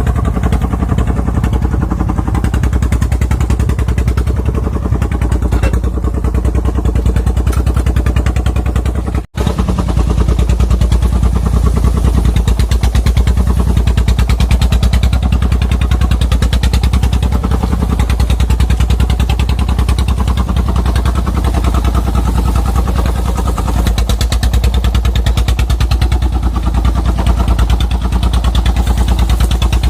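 Single-cylinder Dong Feng diesel engine of a homemade truck running steadily under load, with a fast, even chugging clatter. The sound breaks off for an instant about nine seconds in.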